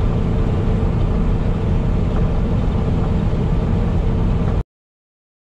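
Steady engine and road noise of a heavy-haul semi truck cruising down the highway, heard from inside the cab. It cuts off abruptly about four and a half seconds in.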